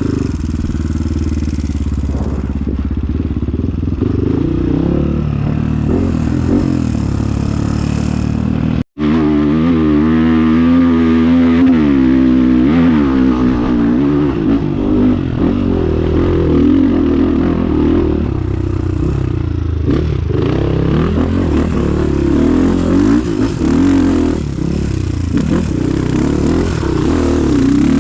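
Trail motorcycle engine running while riding, its revs rising and falling. There is a brief cut-out about nine seconds in, after which the engine note wavers up and down for a few seconds.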